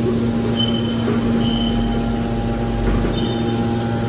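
Hydraulic power unit of a scrap metal baling press, its electric motors and pump running with a steady hum. A few short high-pitched tones come over the hum.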